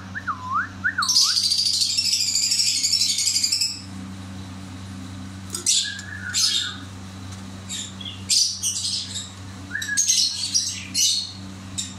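Fischer's lovebirds chirping. A quick repeated rising-and-falling whistle in the first second gives way to a dense burst of shrill chatter lasting about two and a half seconds, then scattered single sharp chirps. A steady low hum runs underneath.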